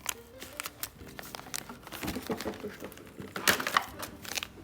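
Plastic packaging crinkling and rustling while small plastic toy pieces are handled, with scattered light clicks and a louder cluster of rustling about three and a half seconds in.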